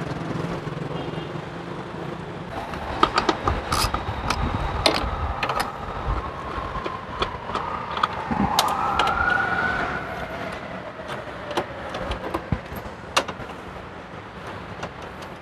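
Sharp clicks and knocks of a screwdriver and hard plastic parts as the air-filter housing is worked loose. Behind them a faint tone glides slowly down in pitch, with a brief rising one in the middle.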